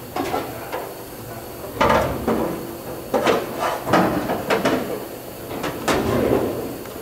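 Pneumatic rivet gun hammering aluminium rivets into a Lancaster bomber's fuselage skin panel, in about five short bursts between about two and six seconds in.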